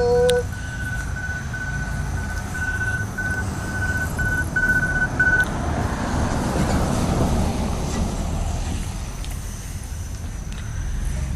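Traffic: a vehicle passes, its road noise swelling and fading over several seconds in the middle, over a steady low rumble. An intermittent high-pitched beeping repeats through the first half.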